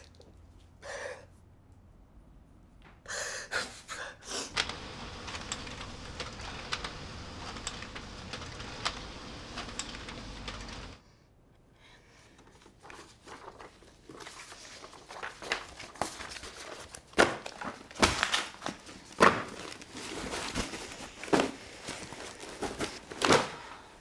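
Sheets of paper being handled on a floor: sharp rustles, crinkles and light thuds, coming thick and irregular in the second half. They follow a steady noise dotted with quick clicks that stops abruptly about eleven seconds in.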